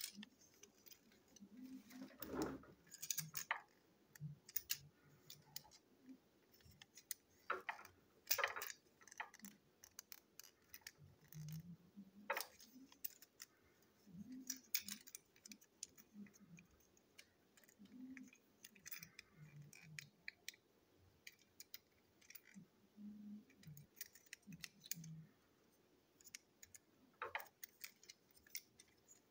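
Faint, irregular clicks and taps of small plastic toy-train parts being handled and set down on a table during disassembly.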